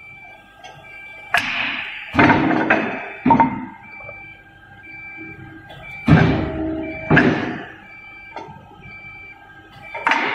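Wooden blanks knocking against the steel feed rack of an automatic CNC wood lathe as they are loaded, about six sharp knocks with a short ring, the loudest about six seconds in. An electronic beep repeats evenly underneath.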